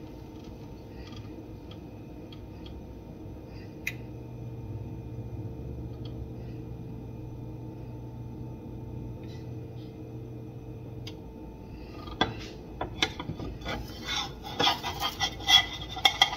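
A metal spatula clicking and scraping against a nonstick frying pan as it is worked under a chickpea pancake to flip it. This starts about twelve seconds in, over a quiet steady hum, and grows busier and louder near the end.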